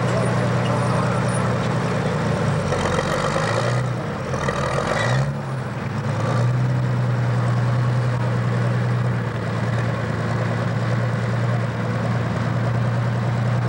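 International pro stock pulling tractor's diesel engine running steadily at low speed. About three and about four and a half seconds in come two short, louder rushes of noise, followed by a brief change in engine pitch.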